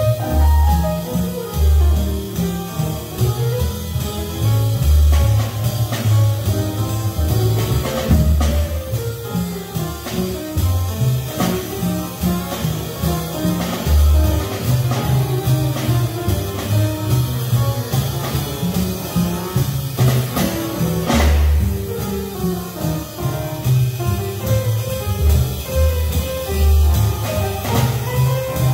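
Live jazz quartet playing: baritone saxophone with grand piano, double bass and drum kit.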